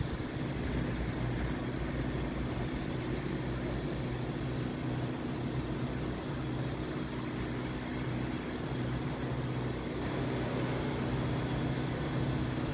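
Freight train locomotive running nearby: a steady low engine hum with a rumbling noise underneath.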